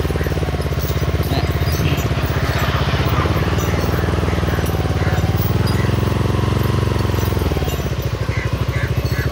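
Small vehicle engine running steadily at low speed with a fast, even pulsing beat, easing off slightly near the end.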